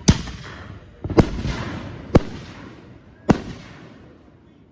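Fireworks going off: four sharp bangs about a second apart, each trailing off as it fades.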